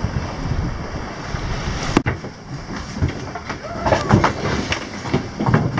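Wind on the microphone and choppy waves from the deck of a sailing yacht in rough sea. About two seconds in, a sharp click breaks it off, and what follows is irregular knocking and clatter inside the yacht's cabin.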